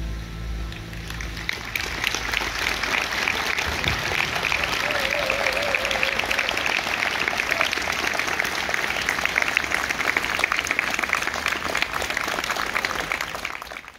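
A band's final held chord dies away in the first second, then a large audience applauds, the clapping building over about two seconds and holding steady before it cuts off suddenly at the end.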